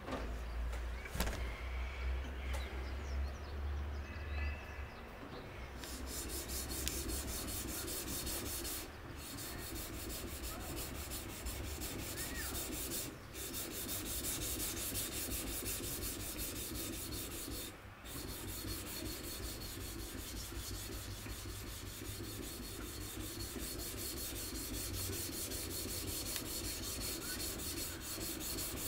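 Kitchen knife blade being stroked back and forth on an 800-grit sharpening stone, a rhythmic gritty rubbing. It settles into a steady pace about six seconds in, with a few brief pauses. The strokes run lengthwise to smooth the shoulder of the convex edge bevel and remove the 400-grit scratches.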